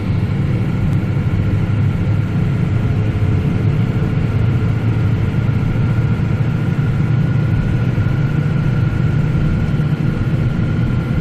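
Steady drone of a truck driving on the highway: engine and road noise with a faint steady high tone above it.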